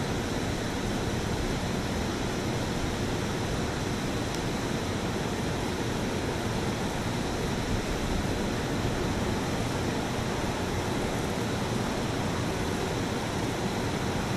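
Steady rushing noise at an even level, with no distinct events and no swell or change.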